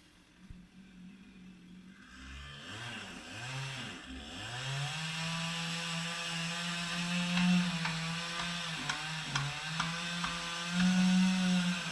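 Chainsaw cutting into a tree trunk. It starts faint, revs up and down a few times, then runs at steady high speed under load, with a few sharp ticks and a higher rev near the end.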